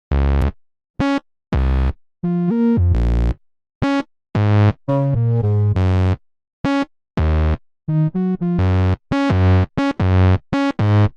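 Electronic music intro: a synthesizer plays a series of short, separate chords and notes with brief silences between them, no beat yet.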